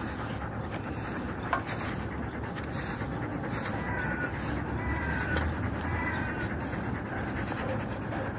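A push broom sweeping concrete in repeated short, scratchy strokes, over a steady low rumble.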